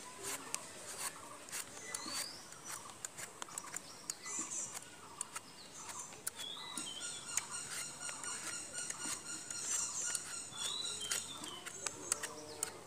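Metal Y-peeler scraping strips of skin off a raw green mango: a quick, irregular run of short scrapes and clicks. Birds chirp in the background, and a steady high trilling call joins about seven seconds in.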